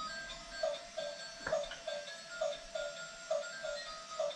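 Toy bubble machine, just switched on, playing its simple electronic tune: a short beeping note about three times a second under a thin melody, with one click about a second and a half in.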